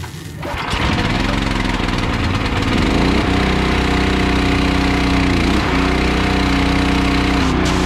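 Small gasoline engine of a hot-water pressure washer starting up about half a second in, then running steadily under load while the wand sprays.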